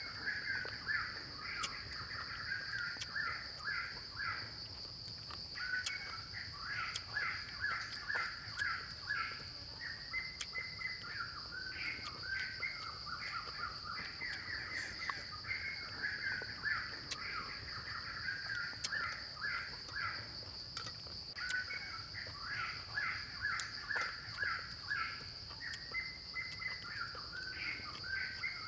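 Forest ambience: a steady high insect drone, with a bird calling in long runs of quick repeated notes that pause briefly now and then.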